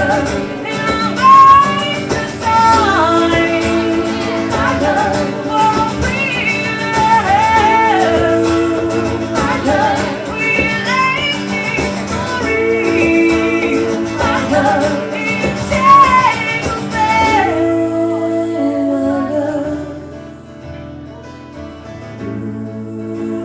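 Live song: a woman's voice singing over strummed guitar. About three-quarters of the way through the singing stops and the guitar plays on alone, quieter.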